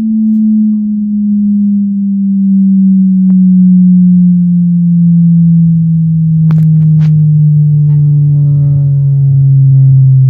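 Mivoc Hype 10 G2 10-inch subwoofer playing a loud, slowly falling test tone, gliding from about 220 Hz down to about 130 Hz. A few sharp clicks come about six and a half to seven seconds in, and buzzy overtones build above the tone in the second half.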